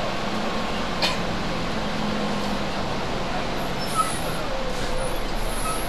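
Bus diesel engine idling with a steady hum while the bus stands still, with a short sharp hiss about a second in and a brief click near four seconds.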